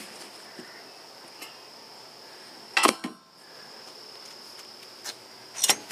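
A metal stockpot lid lifted off and handled, with a sharp clank about three seconds in and another near the end. Under it a steady, high-pitched insect chirring.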